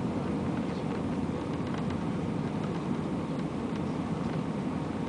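Steady cabin noise of an Airbus A320 on final approach, the engines and the rush of air over the wing heard from a window seat. Faint light ticks come and go over it.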